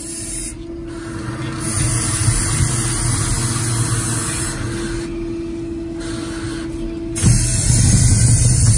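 Roddie Pit Shot directional drill running: a steady machine hum with a hiss that drops out briefly twice. About seven seconds in, a louder low rumble sets in as the rod is driven into the ground.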